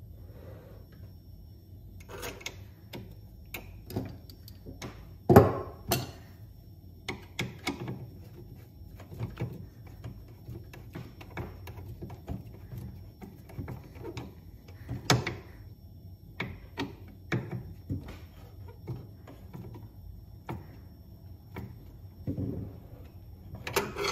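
Hand tools clicking and knocking against the metal auger and housing of a Honda HS520 single-stage snowblower as the rubber auger flap's bolts are tightened with a screwdriver and ratchet. Irregular clicks and knocks, the sharpest about five seconds in.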